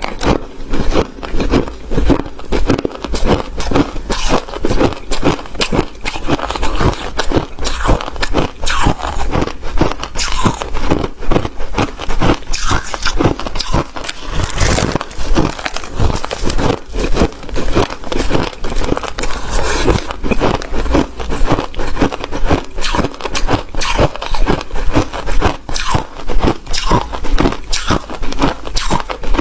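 White ice being bitten and chewed close to the microphone: a rapid, continuous run of loud crunches and cracks with no pauses.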